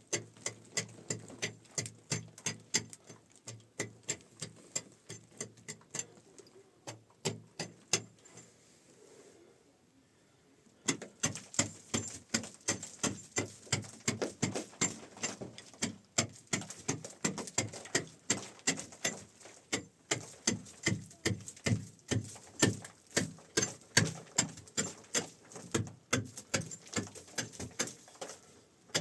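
A hand tool striking over and over at a few strikes a second, with a pause of a few seconds about a third of the way in before the strikes resume.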